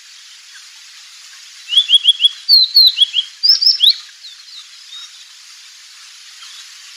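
A small wild songbird singing a quick run of short, sharp, sliding high notes for about two seconds, starting about two seconds in, followed by a few fainter notes, over a steady background hiss.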